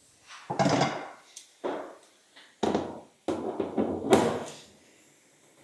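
Four or five separate knocks and clatters of metal bodywork being handled and riveted, as a rear panel is fitted to a Land Rover Series 3 tub.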